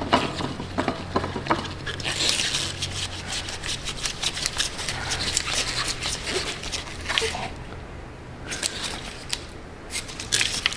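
Gloved hands working a new spin-on fuel filter onto its mount on the excavator's diesel engine, hand-tightening it: irregular scraping, rubbing and clicking of plastic and metal, with a short lull about eight seconds in.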